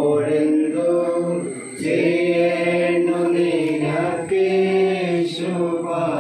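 A single voice chanting a prayer in long, held notes, in phrases of about two seconds each.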